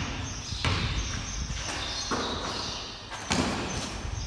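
A basketball bouncing on a bare concrete floor in a large garage bay: about four separate thuds at uneven intervals, the loudest about three seconds in, each trailing a short ring.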